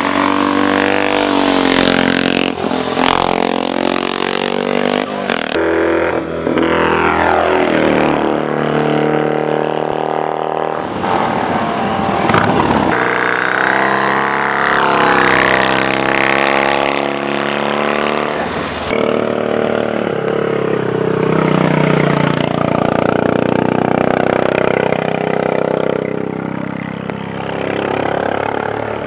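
Racing motorcycle engines revving hard and passing one after another, their pitch climbing under acceleration and dropping away as each bike goes by.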